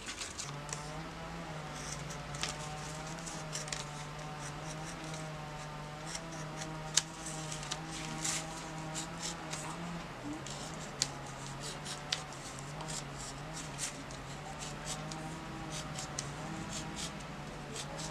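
Snap-off utility knife cutting out a paper template on a board: a run of short sharp clicks and scratches as the blade cuts and catches, the loudest about seven seconds in. A steady low hum runs underneath.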